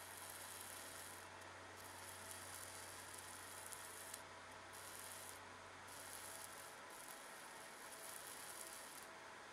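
Faint, steady sizzling hiss of a 50 W fiber laser ablating through a 0.8 mm sterling silver strip, mid-cut. A low hum runs under it and stops about seven seconds in.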